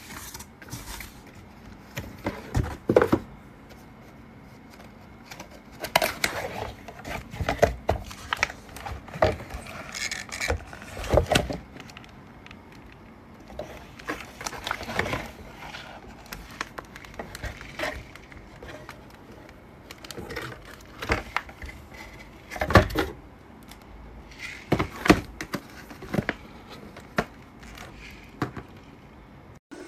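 Irregular handling noise in a small room: clusters of clicks, knocks and rustles come in bursts every second or two, the loudest at about 3, 11, 23 and 25 seconds in.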